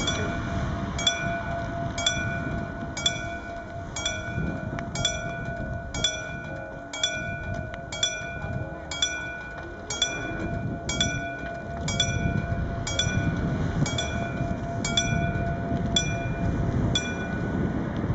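Level-crossing warning bell striking about once a second, each stroke ringing on briefly, over a steady low rumble.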